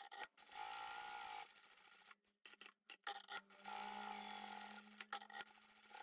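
Electric sewing machine topstitching a padded fabric strap in two short runs, the first about half a second in and the second near the four-second mark. Its motor whine rises and falls with speed, and there are a few clicks between the runs.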